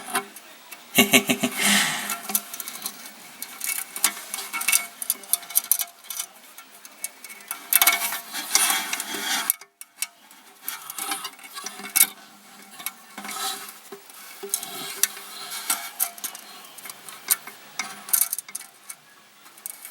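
Light metallic clicking and clinking of a toilet's flush chain and handle lever being handled inside the tank while the chain is hooked on and its length adjusted. The clicks come irregularly throughout, with a brief break a little before halfway.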